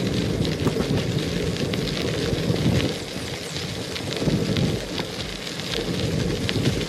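Bicycle tyres rolling and crunching over a fine-gravel trail, with a lot of small scattered ticks of grit, under wind buffeting the microphone as a fluttering rumble.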